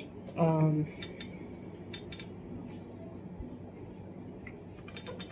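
Tarot cards being handled on a table: faint scattered clicks and light slides of the cards. A brief vocal sound from the reader comes about half a second in.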